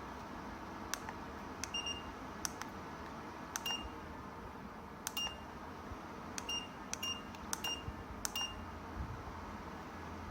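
AooDen fireplace-style ceramic fan heater's control panel beeping as its buttons are pressed: a string of about eight button clicks, each answered by a short high beep, at uneven spacing.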